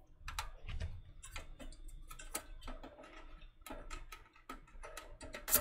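Small screwdriver turning a screw out of a Synology DS920+'s metal drive-bay chassis: faint, irregular metallic ticks and clicks, with a louder clack near the end.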